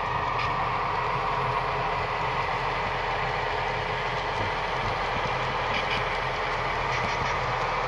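Model diesel locomotives pulling a hopper train, their onboard sound units giving a steady diesel-engine drone over the running hum of the models on the track.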